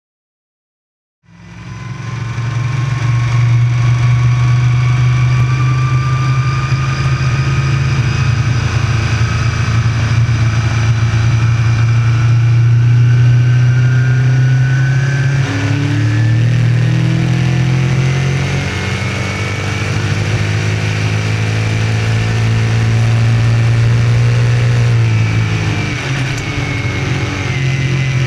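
Small-block V8 engine of a dirt modified race car running hard at speed around a dirt mile. It fades in after about a second. The engine note dips briefly as the driver lifts about 15 seconds in and again about 25 seconds in, then picks up again.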